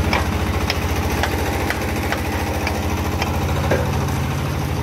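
Diesel engine of a raw-brick making machine running steadily, with a sharp tick about twice a second.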